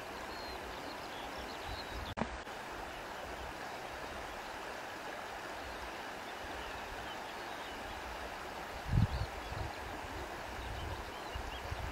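Steady rushing of flowing river water, with wind buffeting the microphone in low rumbles about nine seconds in and again near the end.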